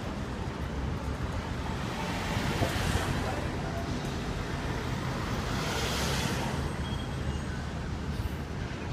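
City street traffic: a steady low rumble of passing vehicles, with one vehicle swelling loudly past about six seconds in.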